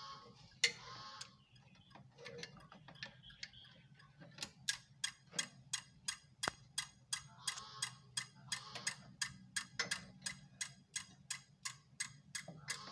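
Rapid, even clicking from a relay on a gate opener control board, about three clicks a second, settling into its steady rhythm a few seconds in. A low steady hum runs underneath.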